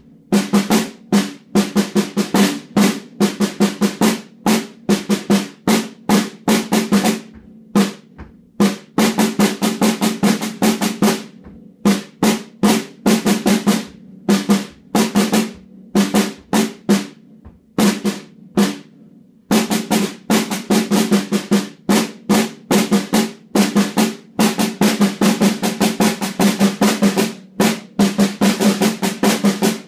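Snare drum played solo with sticks: runs of quick strokes with short breaks, each stroke ringing at the same low pitch. The playing thins out briefly about a quarter of the way in and again about two-thirds through.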